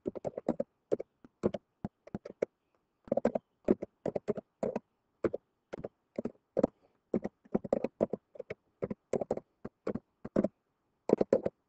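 Typing on a computer keyboard: quick, irregular runs of keystroke clicks, with a short pause about two and a half seconds in.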